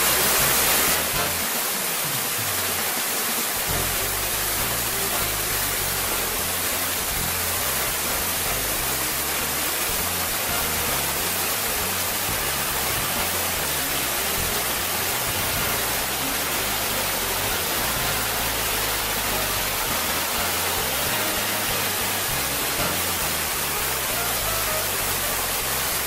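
Small waterfall of spring snowmelt water pouring over a concrete edge into a foaming stream: a steady, even rush of white water.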